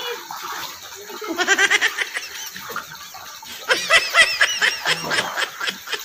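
A woman laughing in two bursts of rapid, high-pitched laughter, the second louder, with water splashing around her.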